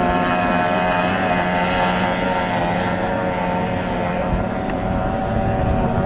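Stock outboard racing hydroplanes running at full throttle: a loud, steady, high-pitched engine buzz from several boats at once, with the higher tones fading slightly about three seconds in.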